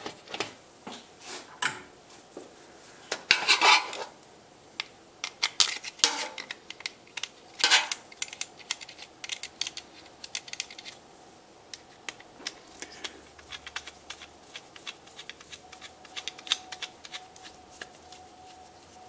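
Metal clinks and knocks as a motorcycle starter motor and its parts are handled against a metal parts tray, with several louder knocks in the first eight seconds, then lighter scattered ticks as a screwdriver works the starter's long through-bolts.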